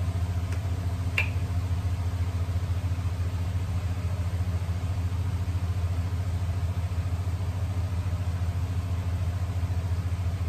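A steady low electrical hum from a kitchen appliance, with a single light tap about a second in.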